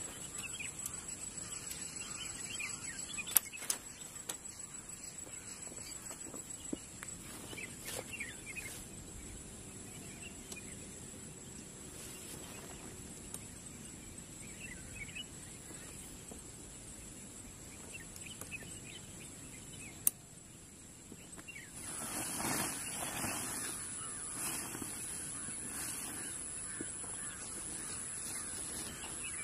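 Open-air ambience of birds calling here and there, with a few sharp clicks from tent poles being handled and fitted. A louder rustling stretch starts about three-quarters of the way in.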